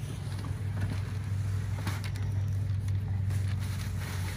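A steady low mechanical hum, like a motor running close by, with a few light crinkles of tissue paper being rummaged through in a gift box, the last of them near the end.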